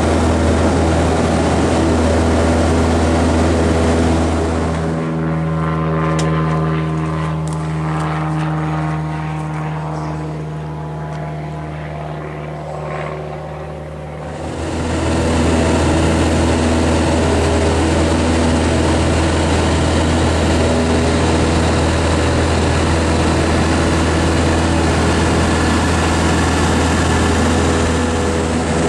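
Light aircraft's piston engine and propeller running steadily, heard loud from inside the cabin. From about 5 s to 14 s it gives way to a quieter, steadier engine drone with a single low hum, before the loud cabin noise returns.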